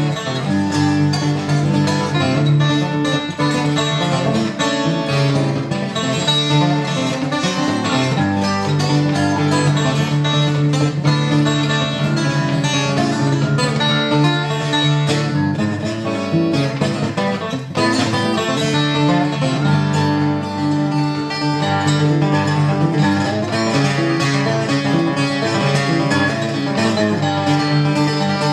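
Solo acoustic guitar played fingerstyle: quick plucked melody notes over steady, ringing bass notes.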